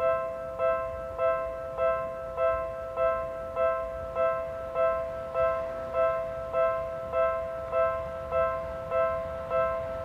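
Japanese railway level crossing's electronic warning bell ringing steadily in even dings, about 1.7 a second, signalling that the barriers are down and a train is approaching.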